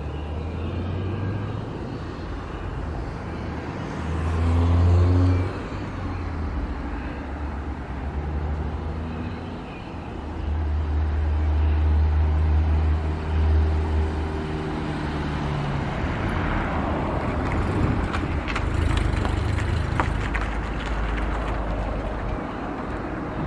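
Jet airliner on final approach, its engines a distant steady rush that fills out over the second half. Gusts of wind rumble on the microphone throughout.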